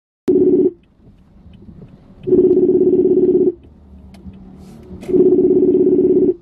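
Ringback tone of an outgoing phone call ringing: a steady buzzing tone sounding in regular rings about a second long, three times, the first cut short, before the call is answered.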